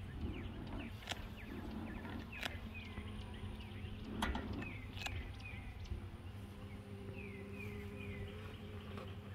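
Honeybees humming steadily around an open hive, while a bird repeats short falling chirps in groups of three or four. A few sharp clicks of handling come through, the loudest near the middle.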